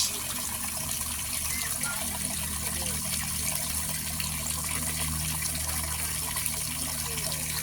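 Water pouring steadily and freely from a free-flowing well outlet, a continuous even gush.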